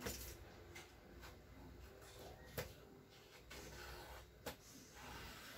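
Quiet room tone with a few faint, sharp clicks, the loudest about two and a half seconds in.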